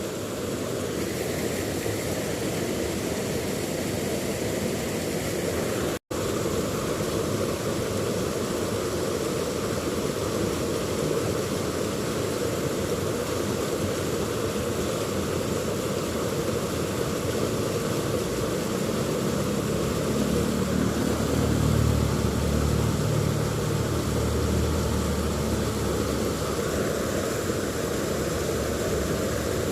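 Steady rushing of river water flowing over rocks. A low hum swells in from about twenty seconds in and fades a few seconds later.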